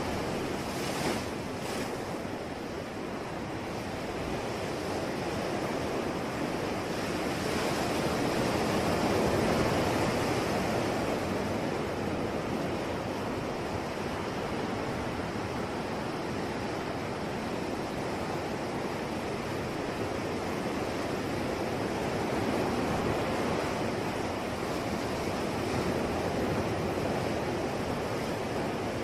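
Sea waves breaking and washing on a shore: a steady rush of surf that swells and eases slowly, loudest about a third of the way in.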